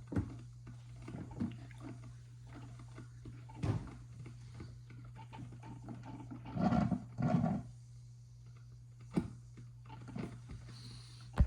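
Mr. Coffee drip coffee maker gurgling and sputtering as it pushes hot water through, with two short gurgling bursts a little past the middle, over a steady low hum and a few light knocks.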